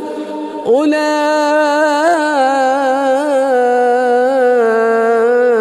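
A male imam chanting Quran recitation in the melodic tajweed style, leading prayer through a microphone. After a short breath in the first second, he holds one long drawn-out phrase with gently wavering pitch.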